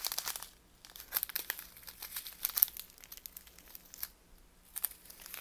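Thin plastic bags of diamond painting drills crinkling in irregular bursts as they are handled, with a short lull about three and a half seconds in.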